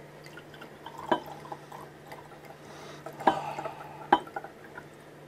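Nearly flat 1964 champagne being poured from the bottle into a glass, the flow faint and without fizz, with three light clinks of glass, about a second in, at about three seconds and at about four seconds.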